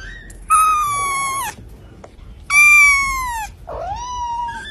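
Kitten meowing: three high, drawn-out meows about a second apart, each sagging slightly in pitch, the third one softer.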